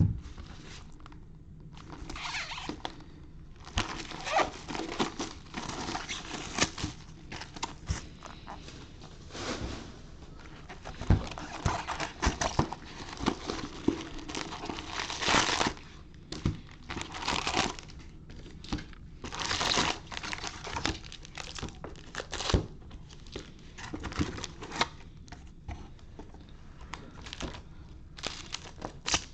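Plastic wrapping and trading-card pack wrappers crinkling and tearing as a box of baseball cards is opened, in irregular bursts.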